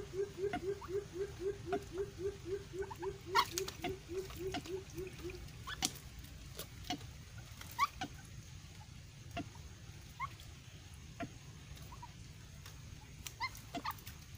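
White-breasted waterhen giving a rapid series of low, repeated hooting notes, about four a second, that stops about five seconds in. Scattered sharp clicks run throughout, the loudest about three seconds in.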